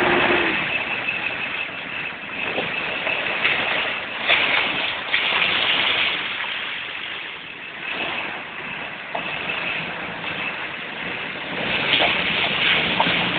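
Jeep 4x4s, a Wrangler and then a Cherokee, driving slowly past over muddy ground: engine and tyre noise as a steady rushing sound. It grows louder about four to six seconds in and again near the end.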